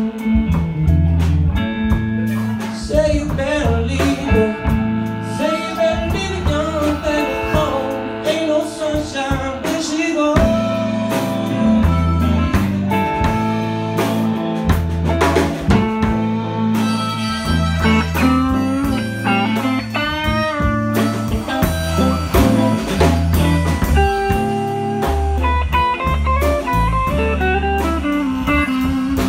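Live blues band jamming: electric guitar playing lead lines with string bends over bass guitar and drum kit.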